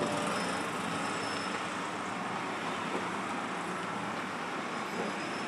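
Steady road traffic noise, an even wash of vehicles and trucks with no single event standing out.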